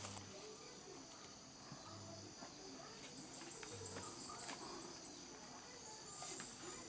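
Steady, high-pitched chorus of insects, with a quick run of rapid chirps about three seconds in.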